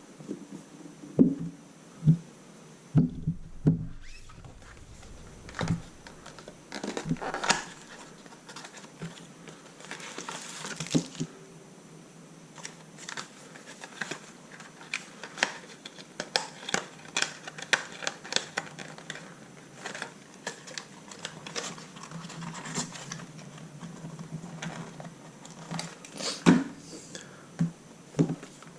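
Hands unpacking a boxed projector: irregular clicks and knocks of cardboard and parts being handled, with crinkling of packaging and a longer stretch of rustling about ten seconds in.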